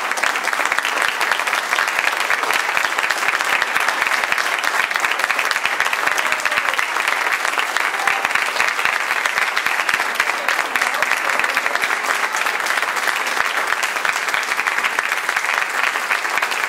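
Theatre audience applauding: steady, dense clapping.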